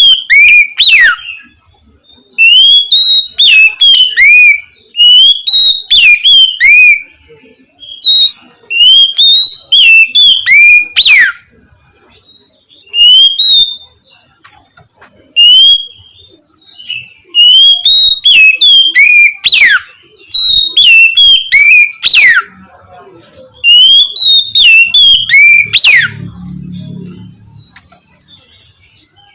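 Oriental magpie-robin (kacer) singing loud, clear whistled phrases in the open 'ngeplong' style. Each phrase is a quick run of rising and falling notes, often ending in a sharp downslur. About nine phrases come with short pauses between them.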